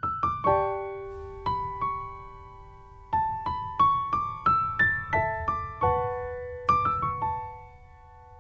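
Soft solo piano music: single notes and chords struck in slow phrases, each note ringing out and fading, with a pause about three seconds in and another near the end.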